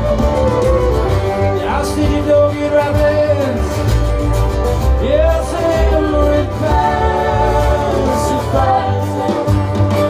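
Live band music in an instrumental passage: a violin melody with sliding notes over a heavy, booming bass.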